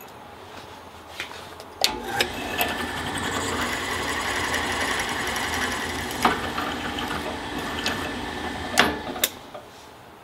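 Benchtop drill press switched on with a click about two seconds in, its motor running steadily while the bit is fed down into a small metal bracket held in the vise. A few sharp clicks follow, and it is switched off about a second before the end.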